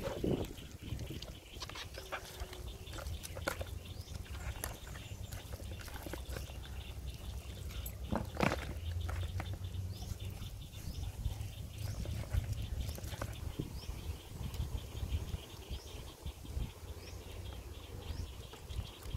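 Outdoor ambience with a steady low wind rumble on the microphone, scattered soft clicks and rustles from hands working raw duck in a plastic bowl, and faint high chirps in the background. One louder, brief sound comes about eight seconds in.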